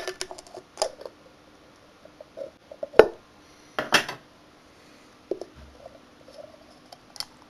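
Handling sounds from a projection CRT's lens and coolant housing being taken apart and wiped: scattered clicks and knocks of hard parts, the loudest a sharp knock about three seconds in and another about a second later.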